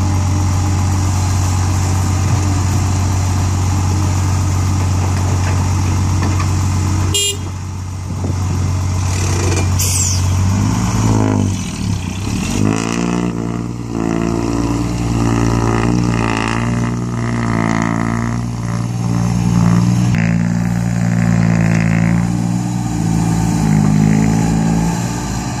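Diesel engine of a Komatsu hydraulic excavator working while digging and loading soil into a dump truck. It first runs as a steady low drone. After a sharp break about seven seconds in, its note repeatedly rises and falls as the engine labours under the hydraulics.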